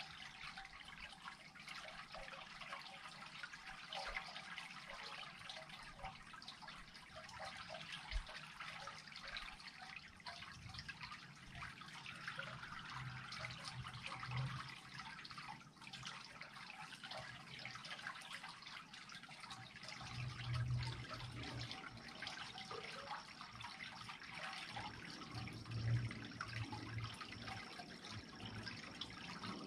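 Water trickling and dripping steadily as the creek drains through an unclogged culvert, with a couple of brief low rumbles about two-thirds of the way in.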